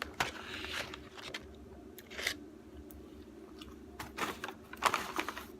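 Close-miked chewing of a McDonald's burger and fries: irregular wet smacks, clicks and soft crunches of a mouth eating, over a faint steady hum.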